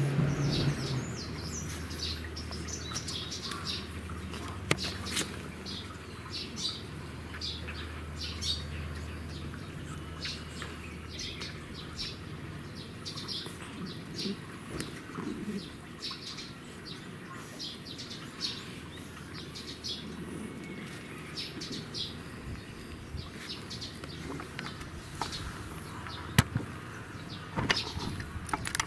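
Small birds chirping: short high chirps repeated throughout, with a low hum in the first several seconds and a single sharp click about three-quarters of the way through.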